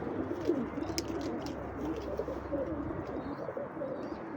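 Several pigeons cooing over one another in low, wavering, continuous coos.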